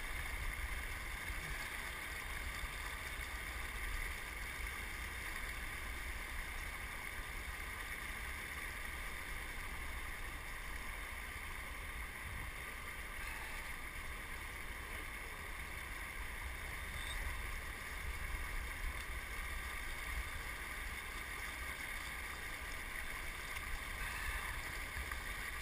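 Steady rush of river current over a shallow riffle, with low wind buffeting on the microphone.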